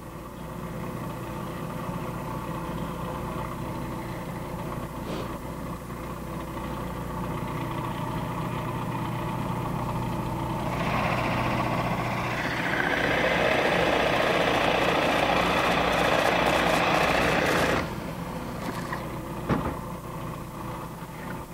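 Woodworking machine motor running steadily, with a loud stretch of cutting into wood about halfway through that lasts some seven seconds and then stops abruptly while the motor keeps running.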